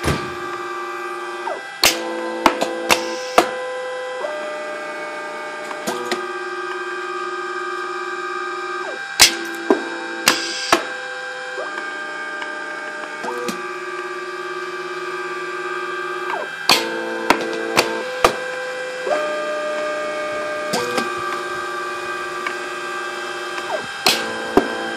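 Home-built automated ribbon cutter running a cycle: its belt-drive feed motors whine at several steady pitches that switch up and down every second or two as they start, stop and change speed. Groups of about four sharp clicks come roughly every seven seconds as the machine works through each cut.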